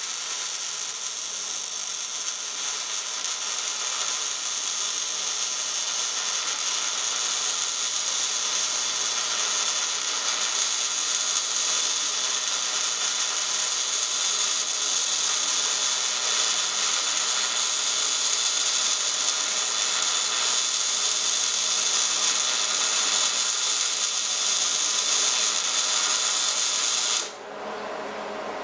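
MIG welding arc burning a steady, even sizzle for about 27 seconds, then cutting off abruptly near the end as the trigger is released.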